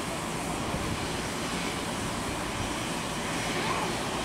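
Boeing 737-800's CFM56-7B jet engines running at taxi idle as the airliner rolls slowly by, a steady even noise.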